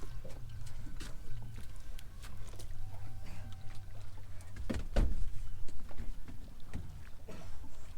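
Scattered knocks and clicks on a small fishing boat over a low steady rumble, with one heavy thump about five seconds in.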